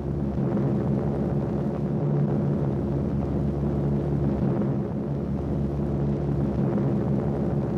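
Steady, even drone of many piston aircraft engines, like a bomber formation passing overhead, with a deep rumble underneath.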